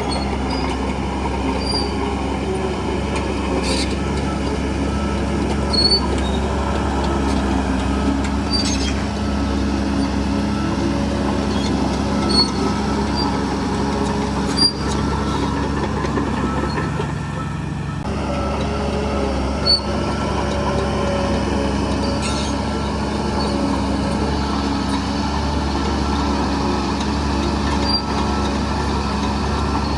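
Bulldozer's diesel engine running steadily under work, with a brief dip in level around the middle and scattered short high squeaks and clicks.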